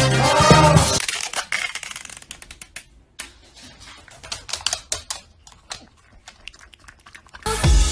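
A white dog's claws clicking on a wooden floor as it trots up, then licking yogurt from a plastic cup: quick, irregular clicks and taps, dense at first and sparser later. Music plays in the first second and starts again near the end.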